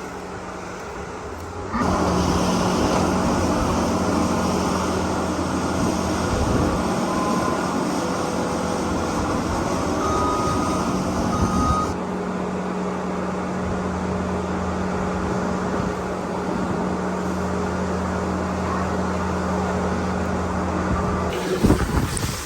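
Skid loader engine running steadily at work, louder from about two seconds in, with a few short high beeps in the middle.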